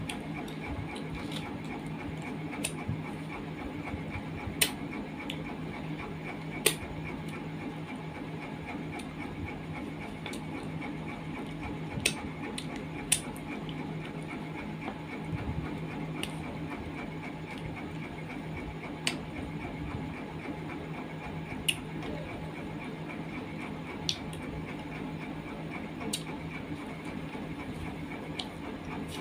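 A person eating by hand: scattered sharp clicks and smacks of chewing and lips, a couple of seconds apart, over a steady low hum.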